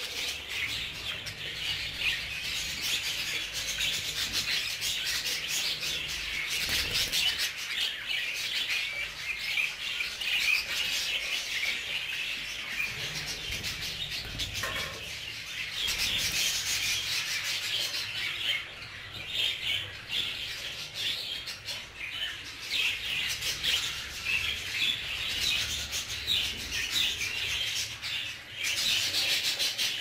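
A flock of budgerigars chattering continuously: a dense mass of high, scratchy chirps and warbles from many birds at once.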